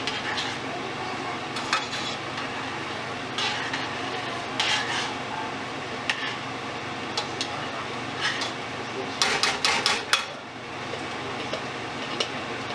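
Metal spoon stirring tomato paste into boiling vegetable soup in a stainless steel pot, clinking against the pot now and then, with a quick run of clinks about nine to ten seconds in. Underneath is the steady noise of the soup boiling.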